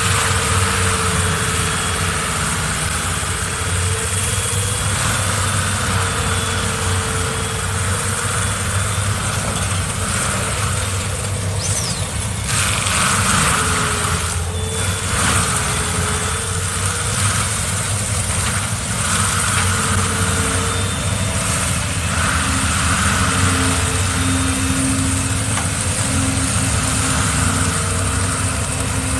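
A heavy machine's engine running steadily at an even speed, with a faint higher tone that comes and goes.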